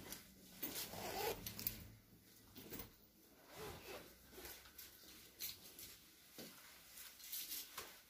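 Faint rustling and scattered small clicks of something being handled, with a brief faint murmur about a second in.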